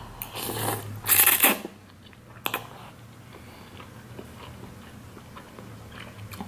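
Mouth sounds of a person eating spicy Samyang instant ramen noodles. There is a short noisy suck at the lips as the noodles go in, then a louder, sharper one about a second in. After that comes quieter closed-mouth chewing with small wet clicks.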